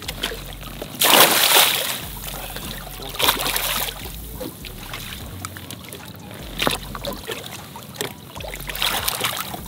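A large pike thrashing at the surface beside a boat as it is hand-landed, throwing up water in several splashes. The biggest splash comes about a second in, with smaller ones later.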